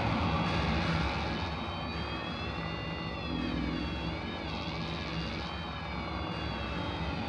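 Experimental noise improvisation: a dense wash of noise over a low steady drone. From about two seconds in, several high thin tones bend slowly up and down together.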